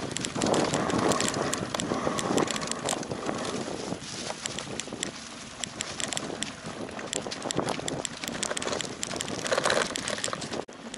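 Bicycle rolling fast over a leaf-strewn forest dirt track: the tyres crunch and rustle over the ground, with many quick rattles and clicks from the bike and wind noise on the microphone.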